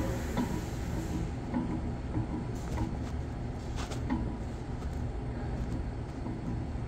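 Air-conditioner squirrel-cage blower fan running: a steady low rumble, with a few faint clicks about three to four seconds in.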